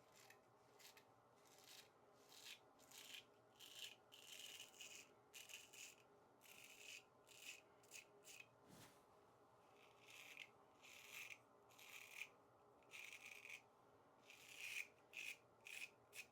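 A Dubl Duck 6/8 full hollow straight razor scraping lathered stubble off the face. It makes a long run of short, faint strokes in irregular quick succession, some in rapid groups of two or three.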